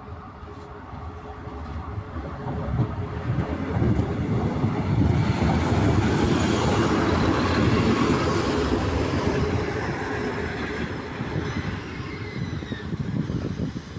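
A Czech class 814/914 Regionova two-car diesel railcar set arriving at a station. Its engine and the wheels on the rails grow louder over the first four seconds, stay loud as the unit passes, then ease off, with a faint high squeal toward the end.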